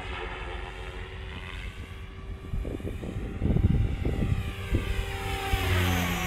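Beam E5 Archon electric RC helicopter in flight: the whine of its motor and rotor blades, sliding up and down in pitch as it passes. Gusts of wind buffet the microphone in the middle.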